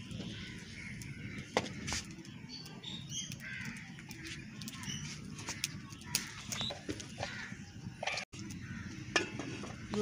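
Crows cawing in the background, over a steady low hum, with scattered sharp clicks.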